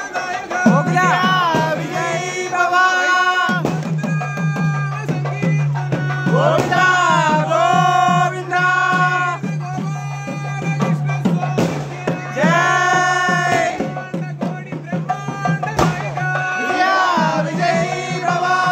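Live temple procession music: a double-reed pipe plays a bending, ornamented melody over a steady low drone, with frequent hand-drum strokes. The drone drops out briefly twice.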